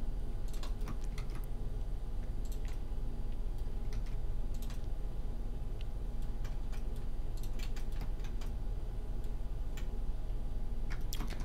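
Irregular clicks of a computer keyboard and mouse as shortcuts are pressed, over a steady low electrical hum.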